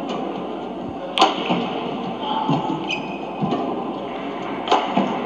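Badminton rackets striking a shuttlecock during a rally: sharp cracks, two loud hits about three and a half seconds apart with a softer one between, over steady arena background noise.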